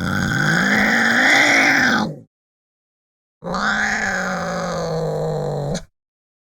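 Angry domestic cat giving two drawn-out yowls. The first rises and then falls in pitch, and the second is held low and level, with a sudden silence between them.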